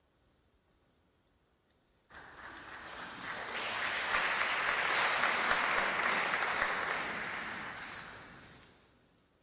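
Audience applauding: the clapping breaks out suddenly about two seconds in, swells, then dies away shortly before the end.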